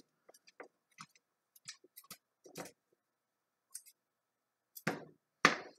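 Kitchen scissors snipping apart linked moose sausages over a frying pan: scattered light clicks and snips, with two louder sharp sounds near the end.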